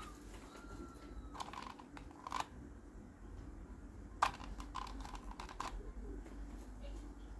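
Small plastic clicks and taps, a few irregular ones with the sharpest about four seconds in, as a smoke alarm and its base are handled while a lock pin is fitted to stop the alarm from being twisted off.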